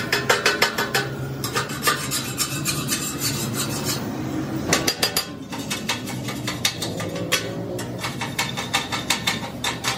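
Metal putty knife scraping and clicking on a steel sheet in quick repeated strokes while body filler is worked, with short pauses between runs.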